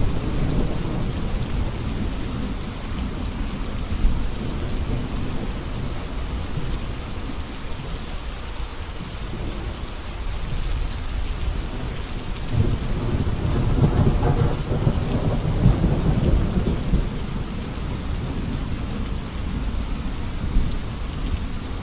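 Steady rain falling, with low rolling thunder rumbling underneath; the rumble swells about halfway through and dies back a few seconds later.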